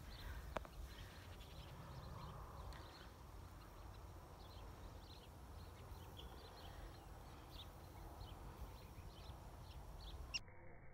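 Wind rumbling on the microphone in open grassland, with scattered short bird chirps and a single click about half a second in.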